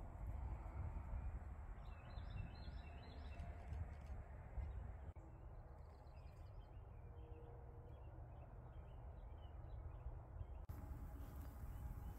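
Outdoor ambience: faint bird calls, with a short run of chirps about two seconds in and scattered softer calls later, over a low steady rumble.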